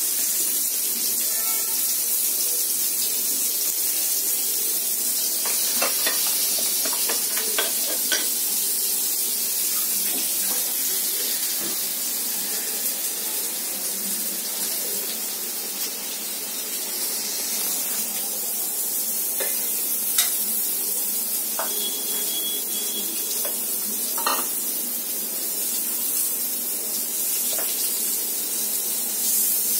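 Paneer tikka skewers sizzling on a hot tawa over a gas burner: a steady hiss, with a few light clicks and taps here and there.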